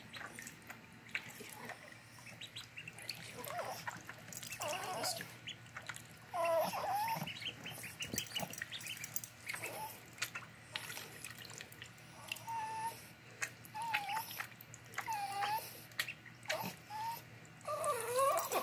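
Ducklings paddling and splashing in a shallow tub of water, with small drips and splashes throughout. Short arched animal calls come every second or two, loudest about six seconds in and near the end.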